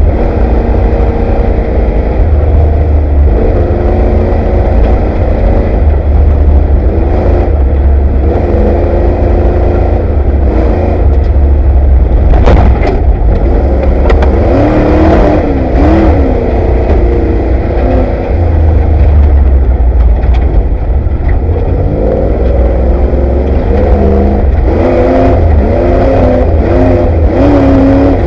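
Ford Bronco off-road race truck heard loud from inside the cab: the engine revs up and down again and again over a heavy low rumble. Knocks and clatter from the truck hitting bumps come in a cluster about halfway through.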